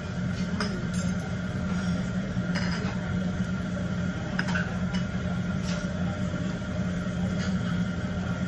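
Several light clinks of utensils against dishes while eating, over a steady low hum.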